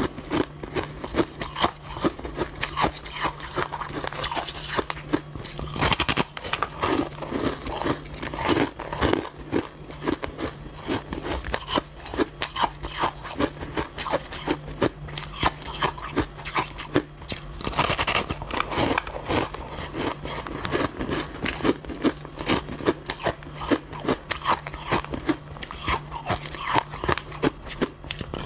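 Biting and chewing a slab of packed shaved ice, with dense, irregular crunching throughout.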